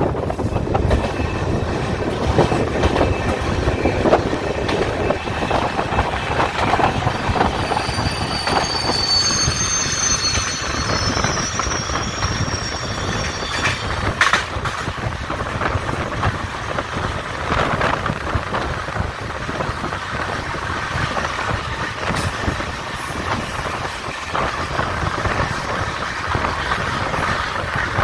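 Indian Railways express train running on the track: a steady rumble and rattle of wheels on rails, with a high wheel squeal from about eight to thirteen seconds in.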